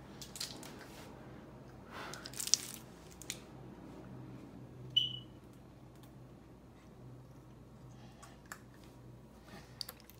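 Quiet kitchen handling noises: scattered rustling and clicks, a sharper click about two and a half seconds in, and a short high clink about five seconds in, over a faint steady hum.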